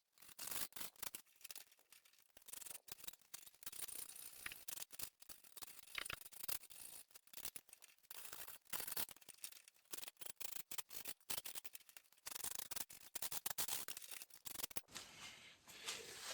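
Hand snips cutting 18 gauge sheet steel: a run of sharp, irregular snips and clicks, with short pauses between cuts.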